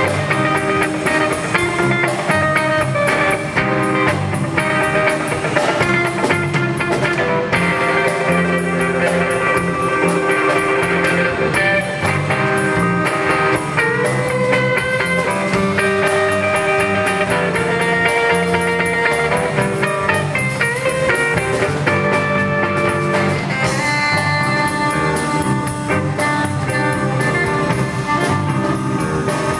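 Live band playing an instrumental passage: semi-hollow electric guitar playing lead lines over electric bass and drum kit.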